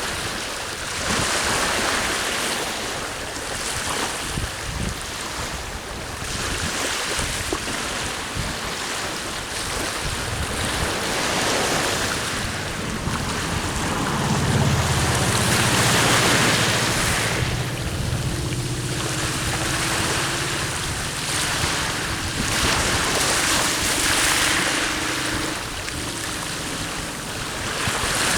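Sea waves washing onto the shore, swelling in surges every few seconds, with wind. From about halfway through, a low steady motor drone sits underneath the surf.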